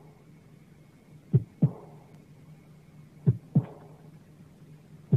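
Heartbeat sound effect: slow paired lub-dub thumps about every two seconds over a low steady hum.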